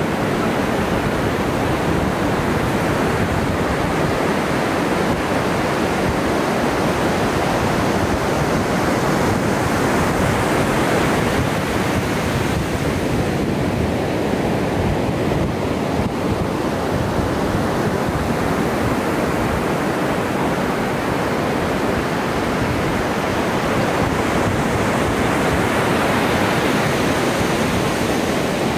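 Ocean surf breaking and washing ashore: a steady rush of waves that swells and eases slowly.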